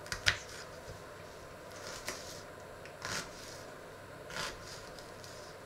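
Small kitchen knife cutting and scraping an onion on a wooden chopping board: a few short, sharp cuts at irregular intervals.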